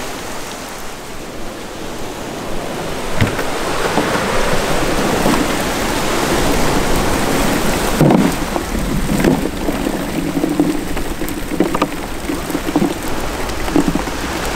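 A cast net's load of glass minnows (anchovies) and pilchards, with seawater, is shaken out into a hard plastic cooler. It makes a dense, rain-like pattering of small fish landing, with scattered knocks. Before that there is a steady rush of surf and wind.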